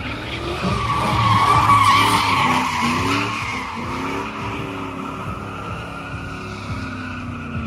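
Pickup truck doing a burnout: its tyres squeal continuously while the engine revs up and down. The squeal is loudest about two seconds in.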